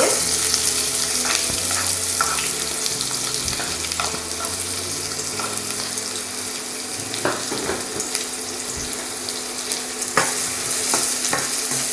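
Chopped onion sizzling steadily in hot oil in a kadai, with a few scrapes and knocks from stirring in the pan.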